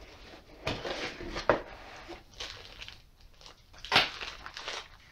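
Cardboard box being handled and opened by hand: irregular scraping and rustling of the cardboard, loudest about four seconds in.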